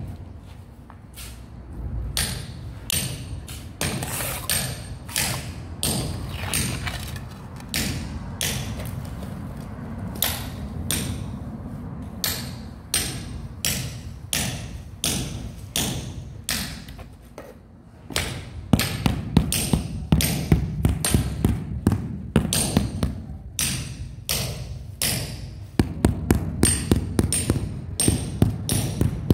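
Rubber mallet knocking on a large ceramic floor tile to bed it into the mortar, a run of dull knocks. After a short lull a little past halfway the knocks come quicker and louder.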